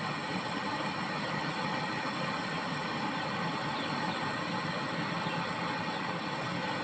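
Gas brazing torch flame hissing steadily as a refrigerator capillary tube is brazed to the filter drier.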